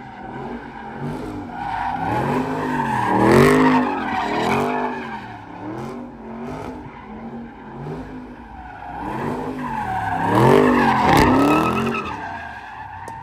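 A car doing donuts: the engine revs high and its pitch rises and falls about once a second, with tyres squealing over it. It swells loudest about three seconds in and again around ten to eleven seconds in.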